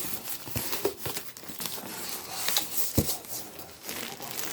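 Gift wrapping being crinkled and torn as a present is unwrapped: continuous paper rustling with sharp crackles, and a stronger snap about three seconds in.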